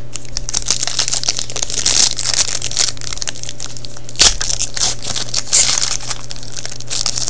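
Foil trading-card pack crinkling and tearing as hands work it open, with a sharp snap about four seconds in. The wrapper resists: a pack that doesn't want to open.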